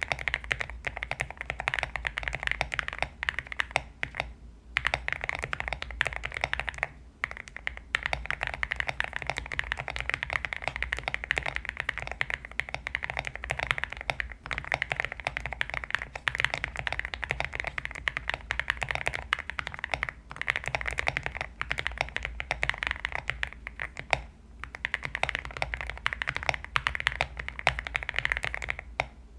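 Steady typing on a Zuoya GMK67 mechanical keyboard with KTT Kang White linear switches, XDA keycaps and a three-layer tape mod on the case, giving a thocky keystroke sound. There are a few brief pauses in the typing.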